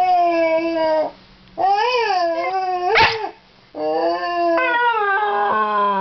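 Scottish terrier howling in three drawn-out calls: the first held steady, the second wavering up and down, and the last sliding down in pitch near the end.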